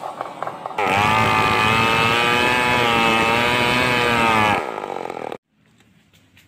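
Stihl 038 two-stroke chainsaw running with a rapid chugging, then revved to full speed just under a second in and held there for about four seconds, before dropping back and cutting off abruptly.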